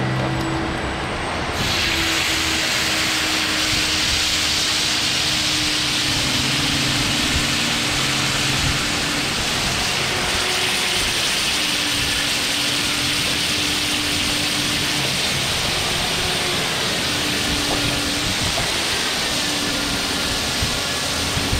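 Butter-and-masala mixture sizzling on a hot flat iron tawa: a loud, steady hiss that starts abruptly about a second and a half in as liquid hits the hot plate. Water is poured onto the sizzling plate partway through.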